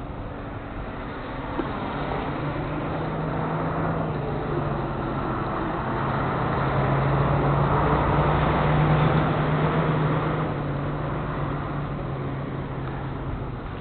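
A vehicle engine running, growing louder to a peak about two-thirds of the way through and then fading, as of a vehicle moving past.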